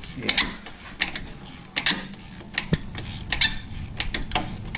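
Hand ratchet clicking in short, irregular strokes as a bolt is turned at the transmission mount.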